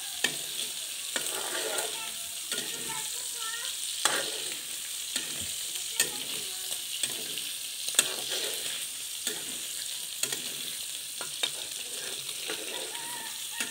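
Diced meat frying in oil in a wok, a steady sizzle with sharp pops of spattering oil every second or two as the meat is browned.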